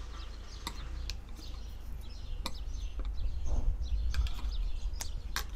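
Small birds chirping, with a few sharp clicks of plastic and wire being handled as an antenna wire is tucked in behind a plastic light housing, over a steady low rumble.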